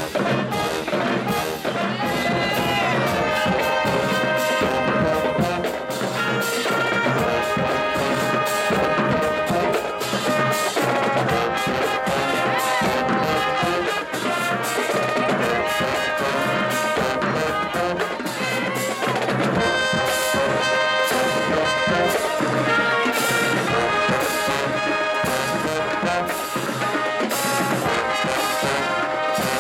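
Marching band playing: brass (trumpets and trombones) over a steady drumline beat.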